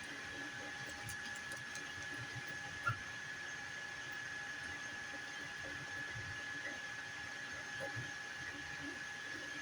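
FDM 3D printer running, a steady high whine over a soft hum with light scattered ticks, and one sharp click about three seconds in.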